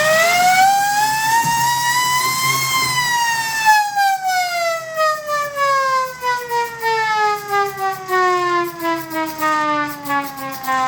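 Old mechanical siren winding up to a peak wail about two and a half seconds in, then switched off and winding down, its pitch falling slowly and its wail wavering in loudness as the rotor coasts to a stop.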